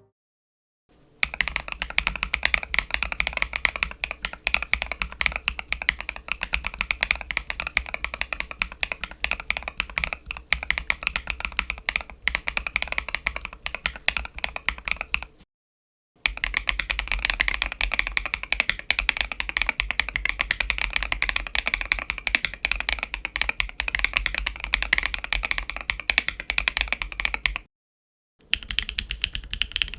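Fast typing on a mechanical keyboard fitted with MMD Princess Tactile V4 tactile switches: a dense, continuous clatter of keystrokes, stopping dead twice for under a second before starting again.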